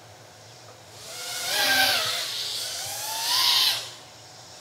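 FPV quadcopter's motors and propellers whining as it flies, swelling loud twice, about a second in and again around three and a half seconds, with a hiss of prop wash and a pitch that slides up and down.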